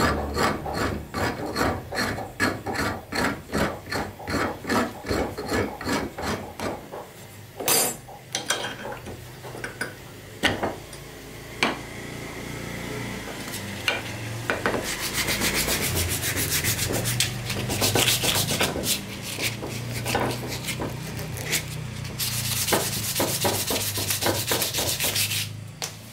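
A flat file rasping along a Ceylon ebony hammer handle in even strokes, about three a second, for the first seven seconds. A few scattered knocks and taps follow. Then come quicker, denser rubbing strokes over the wood until just before the end.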